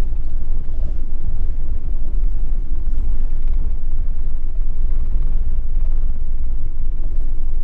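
Wind buffeting the microphone on an open boat: a steady low rumble with no distinct events.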